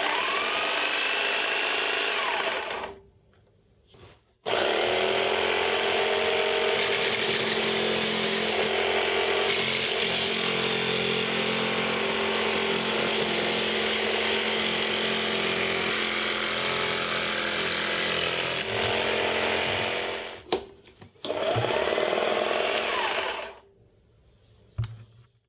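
Table-mounted Worx barrel-grip jigsaw switched on and off at its no-volt-release switch with sharp clicks. A short run spins up and dies away, then a long run of about sixteen seconds as a board is fed into the blade, then another short run.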